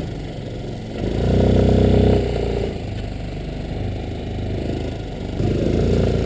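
Off-road buggy engine running while driving, heard from on board. It swells louder for about a second, starting a second in, and again near the end.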